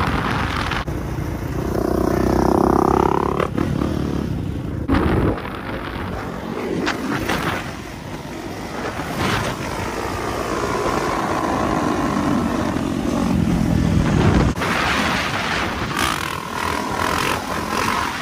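Kawasaki dirt bike engine running under throttle during a wheelie, its revs rising and falling several times.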